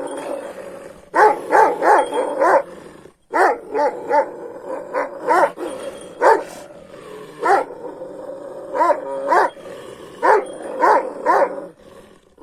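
Kangal shepherd dog barking at another dog: about twenty short barks in quick runs of two to four, with brief pauses between the runs.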